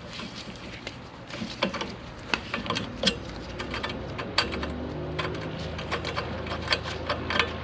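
Steel thread tap being backed out of freshly cut threads, turned by its tap wrench and then by hand: irregular metallic ticks and clicks as it turns. A steady low hum comes in about halfway.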